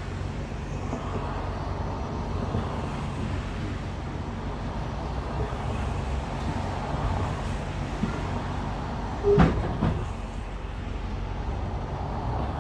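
A bus heard from inside while driving: a steady low drivetrain hum with road noise. About nine seconds in there are two loud knocks in quick succession.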